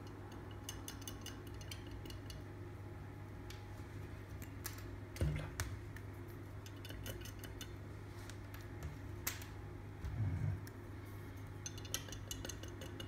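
A wooden toothpick stirring and tapping inside small glass shot glasses of water mixed with pH indicator drops, giving light clinks and ticks. Two duller knocks come about five and ten seconds in.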